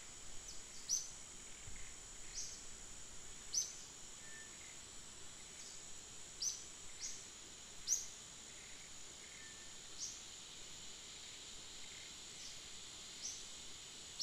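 Forest ambience: a steady high-pitched insect drone, with short falling chirps from a bird about once a second and a few faint whistles.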